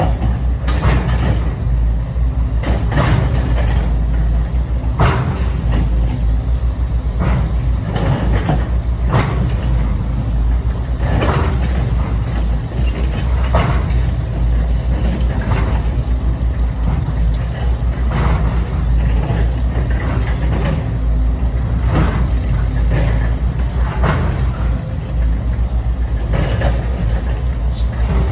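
Scale RC hydraulic construction machines working: a steady motor and hydraulic pump hum, broken every second or two by short hisses and clatters.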